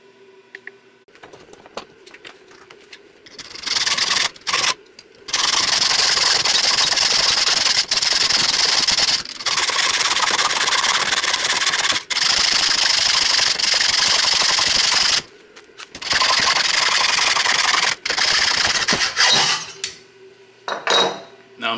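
Hacksaw cutting steel rebar clamped in a bench vise. The sawing starts about three seconds in and goes on steadily, with a few short breaks, the longest about two-thirds of the way through.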